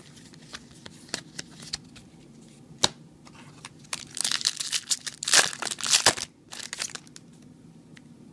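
A foil trading-card booster pack wrapper crinkling and being torn open, loudest in a dense run of crackling about four to seven seconds in, after a few light clicks of handled cards.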